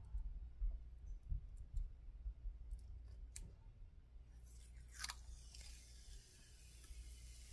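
Clear protective plastic film being peeled off the red rubber of a new table tennis paddle. A few soft bumps and clicks come first as the paddle is handled, then a sharp crackle about five seconds in as the film lifts, followed by a steady hiss as it comes away.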